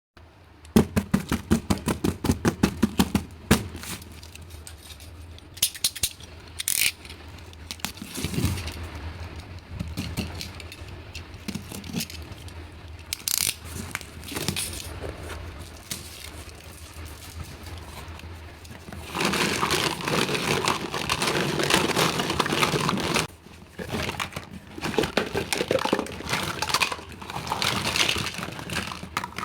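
Small plastic toy set pieces being handled and unpacked: a quick run of sharp clicks and clinks near the start, scattered taps, then a few seconds of plastic packaging crinkling about two-thirds of the way through.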